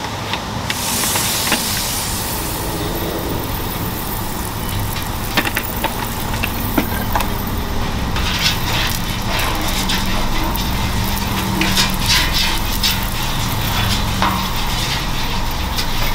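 Cooking oil hissing and sizzling on a hot flat-top griddle as it is poured on and spread around with a spatula, with scattered light scrapes and ticks of the spatula on the steel cooktop. A steady low rumble runs underneath.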